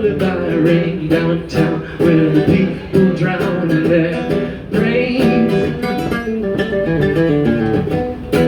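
Background music: an acoustic-guitar-led indie folk song, the guitar plucked and strummed over a bass line.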